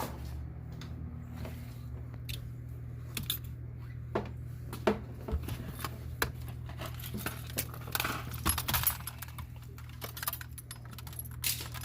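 Scattered light metallic clicks and clinks from an aftermarket car radio and its metal mounting brackets being handled and fitted into the dash, over a steady low hum.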